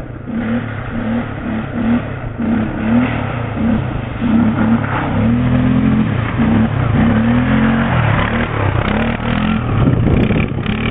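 Quad bike (ATV) engine revving up and down again and again as it rides through mud, growing louder as it comes close and passes by, then moving off.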